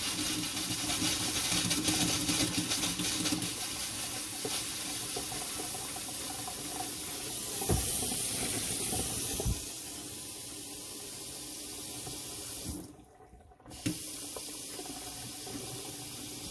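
Delta kitchen faucet running water into the sink with a steady splashing hiss, still carrying air in the RV's water line as the owner hears it. The flow stops for about a second partway through, then runs again.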